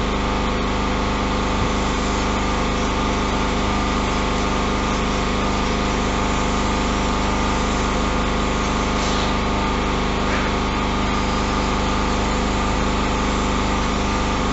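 Electric sheep-shearing handpiece running with a steady, even hum as it clips wool off a sheep.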